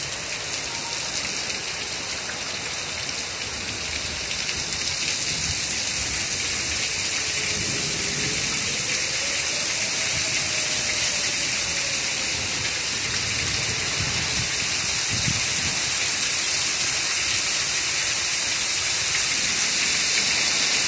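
Heavy thunderstorm rain pouring down around a porch with gusting wind, building steadily louder. A faint tone dips, rises and falls again in the middle.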